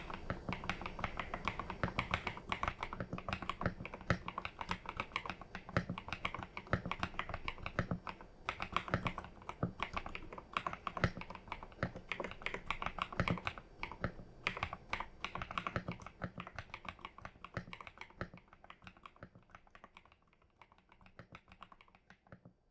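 Typing on an EPOMAKER TH80 Pro mechanical keyboard with linear Wisteria switches and retro keycaps: a fast, steady run of keystroke clacks that thins out and fades over the last few seconds.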